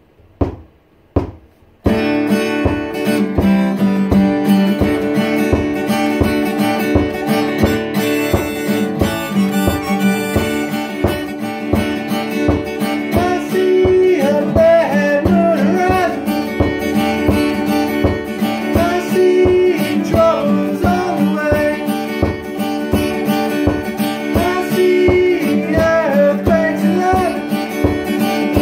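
A few taps count in, then about two seconds in a one-man band starts: strummed acoustic guitar over a steady foot-pedal kick-drum beat, with a man singing over it later on.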